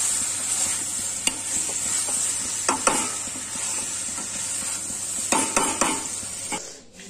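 Aloo gobi (potato and cauliflower) sizzling in a metal kadhai while a metal spatula stirs it, with the spatula scraping the pan a few times. The sizzle fades near the end.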